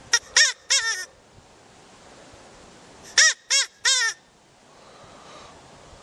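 Rabbit squealing: short, high, rising-and-falling cries in two quick runs of three, about three seconds apart.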